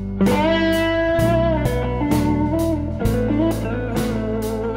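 Blues-rock band with a lead electric guitar, a Gibson SG, playing long held notes that glide from pitch to pitch, over electric bass and drums with steady cymbal strokes about three a second.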